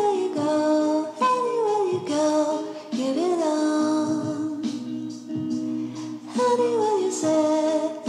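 Background music with a sung melody: held notes that slide from one pitch to the next.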